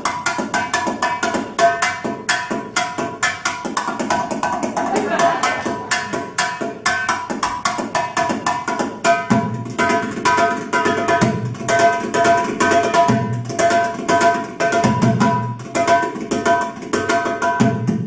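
Belly dance music: a fast, steady hand-drum rhythm with a melody played over it.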